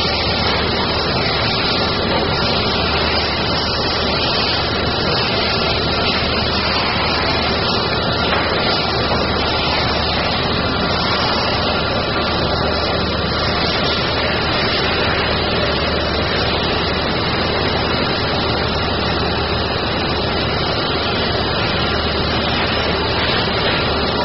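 OMAX waterjet cutting machine with a Bevel-Jet head running: a loud, steady rushing noise with a low hum and a few steady tones underneath.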